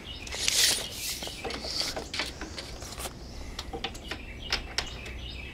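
Tape measure being handled and drawn out along a deck spindle: a brief hiss about half a second in, then scattered light clicks and taps.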